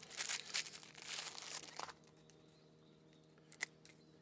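Crinkling, crackly rustle of something being handled for about two seconds, then one sharp click a little later.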